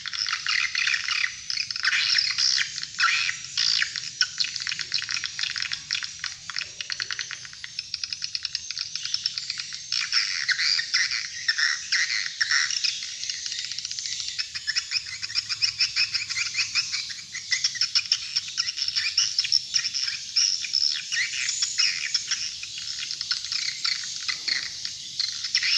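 Swiftlet lure call played through rooftop tweeter speakers: a dense, unbroken stream of rapid high twittering chirps, with no low end.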